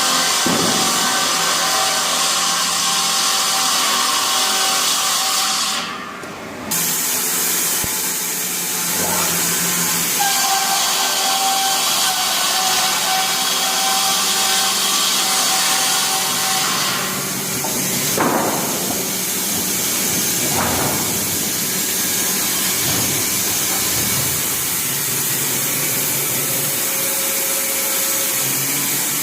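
Multi-blade rip saw machine running and sawing timber: a steady machine hum under the hiss of the blades in the wood.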